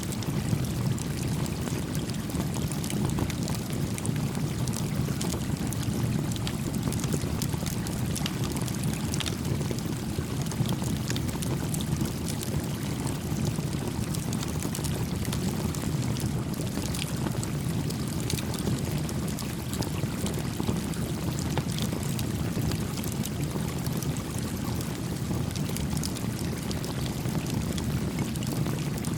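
Small campfire crackling with scattered faint pops over the steady low rush of a gently flowing stream.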